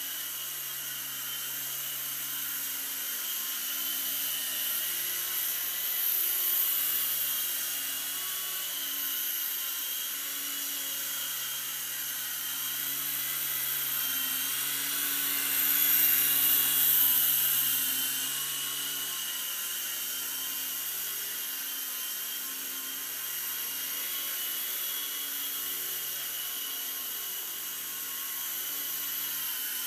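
Electric micro RC helicopter in flight: a steady high-pitched whine of its small motors and rotors, wavering slightly in pitch. It grows louder about six seconds in and again around sixteen seconds, as it comes close.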